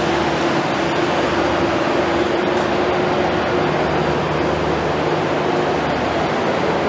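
Steady rushing hum of a Renfe Trenhotel passenger train at the platform, with a held mid-pitched tone that fades out about six seconds in and a lower hum that comes in about halfway through.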